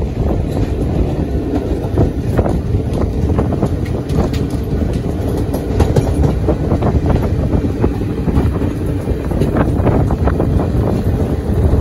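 Passenger train running at speed, heard from a window of the coach: a steady rumble of wheels on the rails with irregular clicks and clacks scattered through it.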